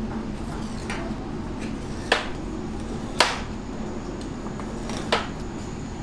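Three sharp knocks, the second a second after the first and the third two seconds later, over a steady low mechanical hum.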